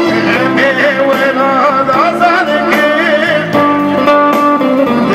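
A man singing a Kurdish song into a microphone with instrumental accompaniment, the vocal line wavering in ornamented turns over steady held notes.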